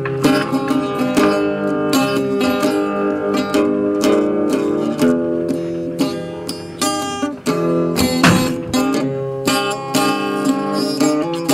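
Background music led by acoustic guitar, a run of plucked and strummed notes.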